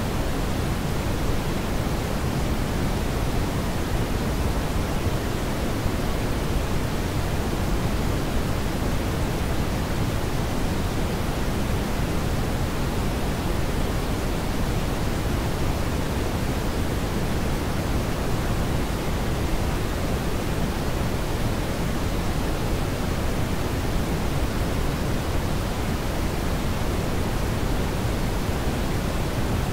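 Brown noise: a steady, unchanging rushing noise, heaviest in the low pitches and thinning toward the high ones.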